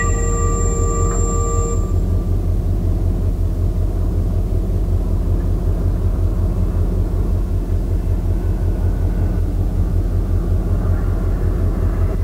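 Go-kart engines running on the track, a loud steady low rumble with a fluttering texture. A set of held tones ends about two seconds in.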